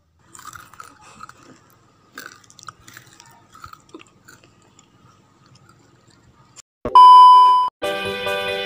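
Crispy fried kue bawang (garlic-shallot wheat-flour crackers) being bitten and chewed, a run of faint, irregular crunches. About seven seconds in, a loud steady beep sounds for under a second, then music starts.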